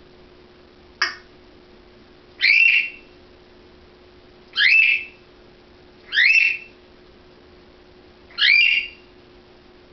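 African grey parrot whistling: four separate rising whistles of about half a second each, spaced a second and a half to two seconds apart, after a single sharp click about a second in.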